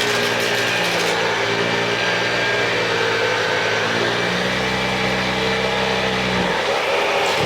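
Kärcher CV36/2 upright vacuum cleaner running on carpet, its motor and brush roll humming steadily with the pitch shifting a little as the load changes. In the first second there is a crackle of debris being sucked up.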